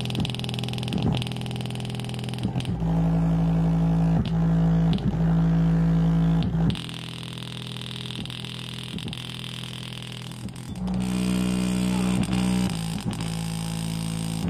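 JBL portable Bluetooth speaker playing a bass-heavy track loud, its passive radiator pumping. Long deep bass notes each hold for a few seconds, the pitch shifting about a third of the way in and again past the middle, with short beat hits in between.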